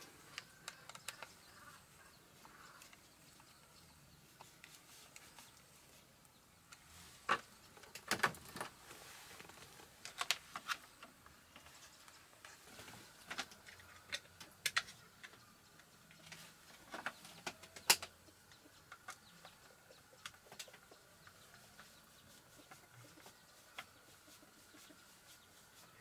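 Faint, scattered clicks and taps of hands and a screwdriver working on a plastic wall switch-and-socket panel while wires are fitted, several of them sharp and close together. A faint high steady tone sits underneath from about halfway on.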